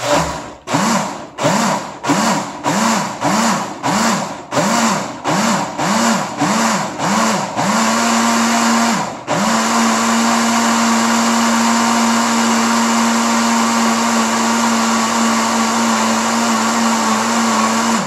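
Mondial kitchen blender pulsed on and off about twice a second, the motor spinning up and down with each press. From about eight seconds in it runs continuously, with one brief break near nine seconds. It is blending oil, caustic soda and powdered detergent into homemade soap.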